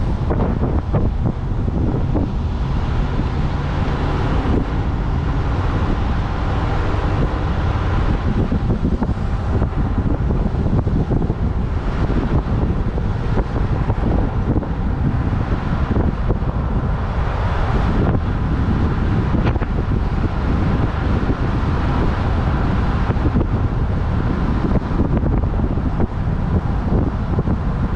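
Wind rushing over the microphone of a vehicle-mounted camera, with the low drone of the moving vehicle and its tyres on the road underneath. Steady throughout.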